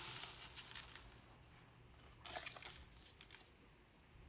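Dyed dry rice pouring from a paper cup into a plastic tub, a faint steady hiss that trails off within the first second or so. Then a plastic toy packet is pulled out of the rice and crinkles, one short burst about two seconds in and a few light clicks after it.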